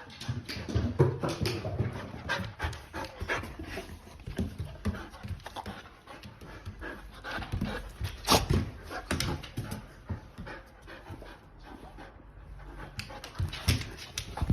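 Akita Inu dog panting hard and fast, excited, with a sharper knock or scuffle about eight seconds in.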